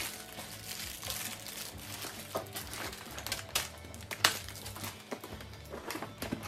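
Plastic packaging crinkling and rustling in cardboard boxes as wrapped kit pieces are handled and pulled out, in irregular sharp crackles; the loudest comes a little past four seconds in.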